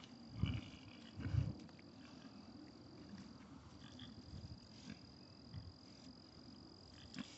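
Faint steady high-pitched insect trill, with two dull low thumps on the microphone about half a second and just over a second in.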